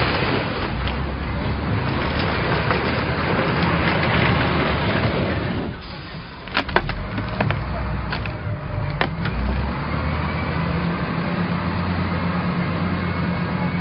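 Loader engine running under load as it shoves a car, with several sharp cracks and knocks bunched together around the middle, then a steady engine drone.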